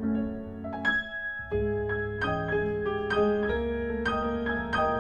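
Piano playing a classical piece at a moderate pace: single notes and chords struck one after another, with a brief lull in the bass a little after a second in.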